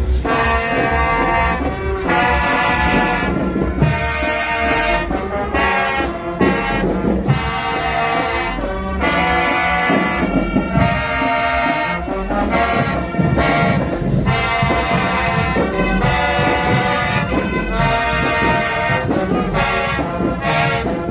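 Marching band playing: a brass section of trumpets, trombones and sousaphones in short, punchy phrases with brief breaks between them, over a low drum pulse.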